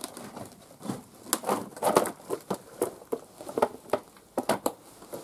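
Footsteps crunching and knocking over debris and broken floorboards, an irregular run of sharp crunches and thuds.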